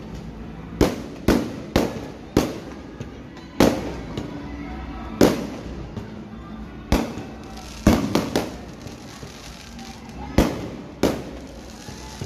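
Aerial fireworks shells launching and bursting: about a dozen sharp bangs at irregular spacing, each trailing off in a short echo, with a quick run of three about two-thirds of the way through.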